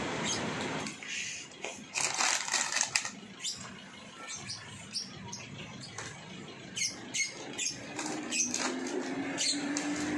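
Plastic-wrapped snack packs rustling and crinkling as they are handled and packed into a cardboard box, in short irregular bursts. A steady low hum comes in near the end.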